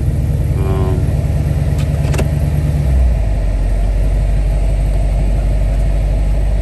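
A 2012 Chrysler 300C's engine running with a loud, pulsing exhaust drone, its exhaust loose and due to be tightened again. About three seconds in the engine note swells briefly and settles into a steadier, lower drone; a single sharp click comes a little before that.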